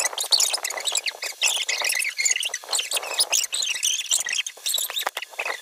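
Many small birds chirping and twittering continuously, their short high calls overlapping.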